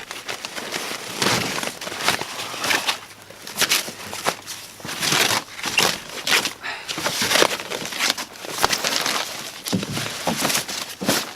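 Plastic shipping wrap being cut and torn off a kayak, crinkling and ripping in irregular bursts.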